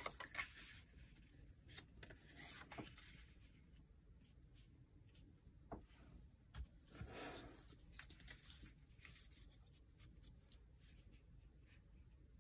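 Faint paper handling: cardstock photo mats and a thin paper strip slid across and set down on a sheet of cardstock, giving soft rustles and light taps, with a slightly longer rustle about seven seconds in.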